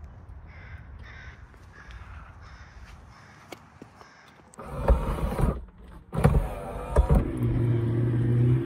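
Electric motor of a 1989 Porsche 911 Carrera Cabriolet's power soft top, starting a steady hum about three-quarters of the way in as the top folds down. Just before it come two loud, harsh, grating stretches.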